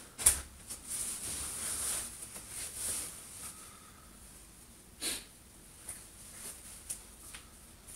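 Clothing rustling as a skirt and top are pulled on and adjusted, with a sharp knock just after the start and another about five seconds in.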